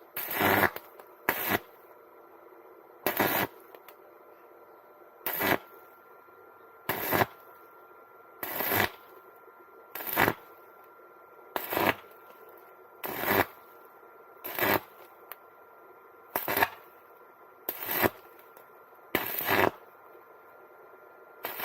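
Electric arc welding done in short stitches: about fourteen brief crackling bursts of arc, each under half a second, repeating roughly every one and a half seconds, as a new brake arm is welded onto a bike's steel fork.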